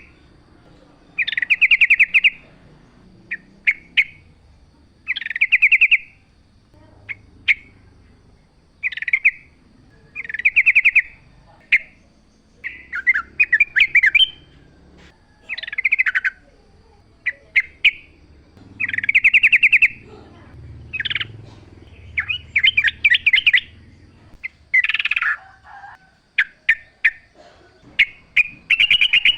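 Yellow-vented bulbul (trucukan) singing: short bubbling, warbled phrases repeated every second or two, with sharp single chips in between.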